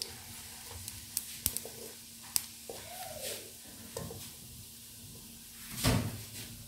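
Cumin seeds sizzling in hot oil in a metal karahi, stirred with a wooden spatula that scrapes and taps the pan, with a few sharp ticks and a louder scrape about six seconds in.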